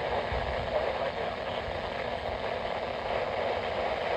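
Steady static hiss from a weather radio receiver, with no voice or alert tones over it.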